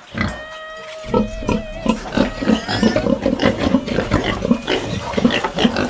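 Pigs grunting and squealing in a quick run of short calls, several a second, starting about a second in.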